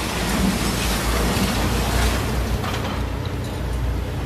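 Concrete building being demolished: a dense rushing clatter of breaking concrete and falling rubble over the low hum of a heavy diesel machine. About three seconds in the rushing noise falls away, leaving the excavator's engine running with metallic clanking.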